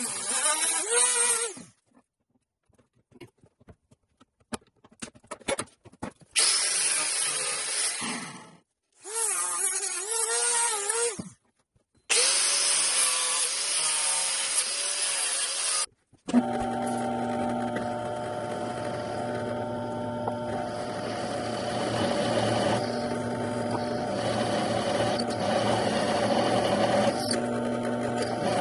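Handheld rotary tool grinding a PVC pipe in short bursts, its pitch dipping each time it bites, with small clicks in the pauses between. About twelve seconds in, an angle grinder cuts into the PVC pipe for about four seconds. After a short break a bench drill press runs steadily, drilling into a metal rod.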